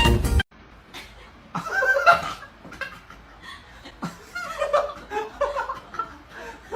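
Person laughing in several short bursts of chuckling, after music cuts off about half a second in.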